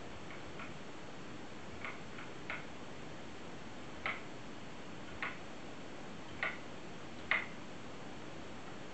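Switching relays clicking as the computer-driven light bars' lamps change, about nine single sharp clicks at uneven intervals, the later ones louder, over a steady hiss.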